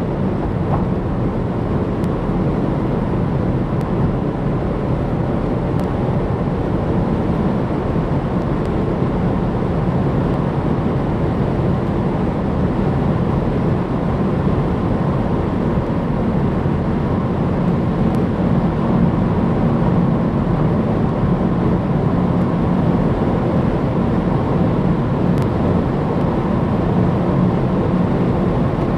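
Opel Insignia GSI driving fast on the motorway: a steady engine drone under heavy road and wind noise, the low hum growing a little stronger about halfway through.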